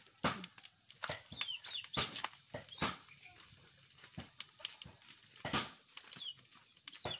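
Wood cooking fire crackling with sharp irregular pops, while birds, likely chickens or chicks, give short high chirps that fall in pitch, a few times a second in clusters.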